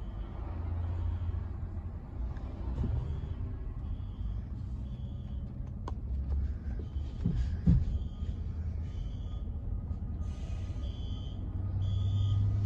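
Low steady vehicle engine rumble, with short high beeps coming and going. There is a sharp click a little before the middle and a louder thump about two-thirds of the way through.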